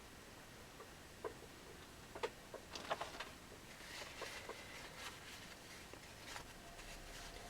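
Faint, scattered light clicks and taps of small parts and tools being handled on a workbench during electronics repair work, most of them in the middle of the stretch.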